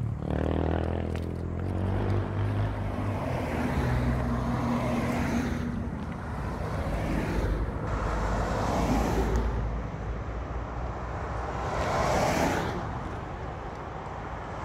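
Road traffic: several cars passing one after another on the highway, each swelling and fading away, over a low steady engine hum in the first few seconds.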